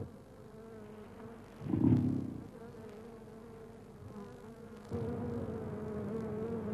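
A swarm of agitated honeybees buzzing in a steady, wavering drone around a raided hive. A brief louder low sound comes about two seconds in.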